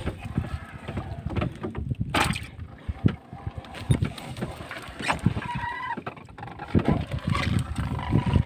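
Nylon gill net being hauled by hand into a small outrigger fishing boat: irregular knocks and clatters of net, weights and fish landing in the hull, with water splashing.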